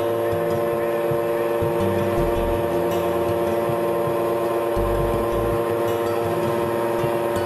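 de Havilland Canada DHC-2 Beaver floatplane's nine-cylinder Pratt & Whitney R-985 radial engine running steadily at idle, an even engine hum with no change in pitch or level.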